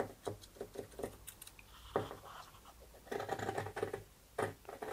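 Large fabric scissors cutting through fabric: a run of short, irregular snips as the blades close, with a busier stretch of cutting and rustling a little after three seconds.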